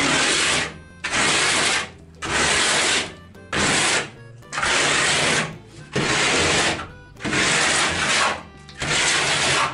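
Plastic plastering float rubbed up and down over drying bark-beetle textured plaster, a gritty scraping stroke about once a second that scratches the grooved pattern into the wall.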